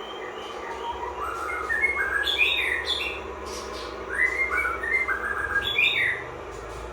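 A high whistled phrase of notes stepping upward and ending in falling glides, played twice over a steady low hum.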